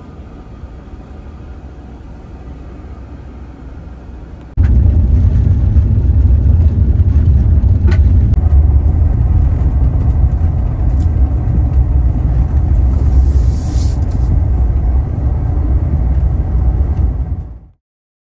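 Steady low rumble of a van on the road, road and wind noise, moderate at first and then abruptly much louder about four and a half seconds in. It cuts off suddenly shortly before the end.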